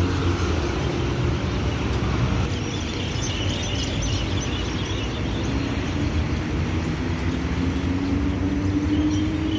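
Road traffic on a city avenue: a steady hum of cars, with a car passing close at the start and an engine note slowly rising near the end.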